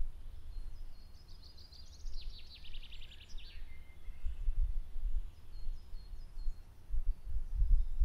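A songbird sings one phrase of rapid repeated high notes, starting about a second in and lasting about two and a half seconds, with a few faint chirps later, over a low rumble.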